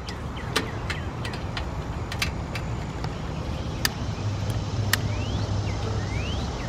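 Scattered sharp crackles, plausibly the wadded paper kindling catching in a lit charcoal chimney starter, over a low steady rumble that picks up a hum about four seconds in. Two short rising chirps come near the middle and near the end.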